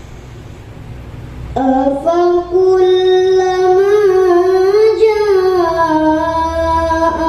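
A young girl's voice chanting Quran recitation in the melodic tilawah style, in maqam Hijaz. It starts about a second and a half in, after a low room hush, and holds long notes that bend slowly up and down with small ornamental wavers.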